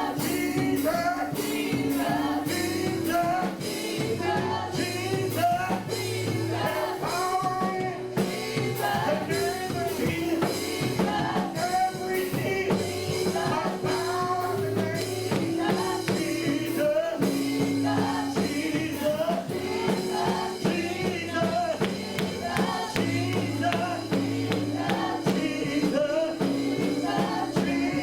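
Gospel music: voices singing over a band, with sustained bass notes and a steady beat.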